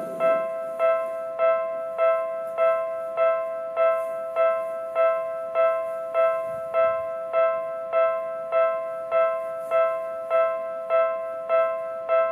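Japanese railway level-crossing warning bell ringing steadily for an approaching train, a little under two identical bright electronic dings a second, each fading quickly before the next.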